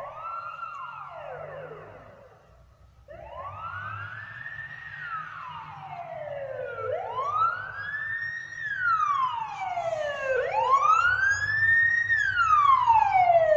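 Police car siren wailing: a short rise and fall at the start, a brief break, then slow rises and falls repeating about every three and a half seconds, growing louder as the car draws closer.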